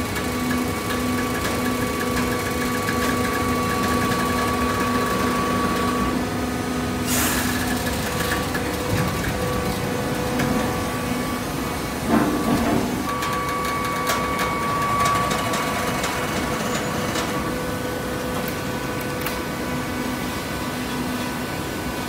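Hydraulic horizontal baler running: its pump motor gives a steady hum with a whine. There is a short hiss about seven seconds in and a brief louder rush of noise about twelve seconds in.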